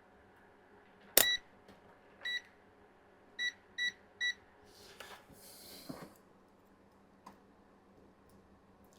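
Digital multimeter beeping: five short, high beeps in the first half, the first and loudest with a click. The brief beeps, never a continuous tone, come as the meter checks the capacitor, which is not shorted. Soft handling rustle follows.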